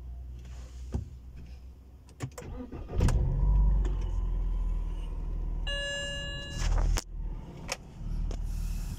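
BMW E90's N46 four-cylinder petrol engine cranking and catching about three seconds in after a few clicks, then running. A short electronic tone sounds around six seconds in.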